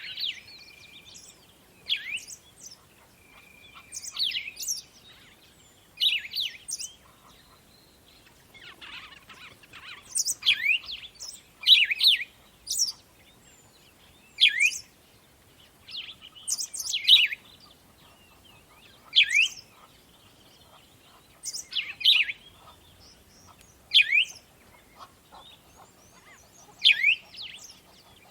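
Songbirds singing: short, quick chirping phrases of sweeping notes, repeating about every two seconds over a faint background hiss.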